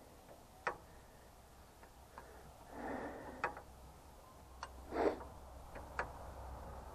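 Metal spanner clinking on the nuts of an Ursus C-330's hydraulic lift control valve as it is bolted down: a handful of sharp clicks, the loudest about five seconds in, with short scraping rustles between them.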